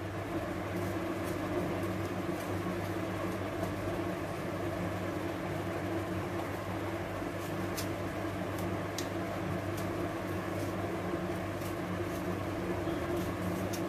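Steady low mechanical hum in the kitchen, with a few faint clicks and taps from a knife cutting tomatoes in the hand and the pieces dropping into a steel grinder jar.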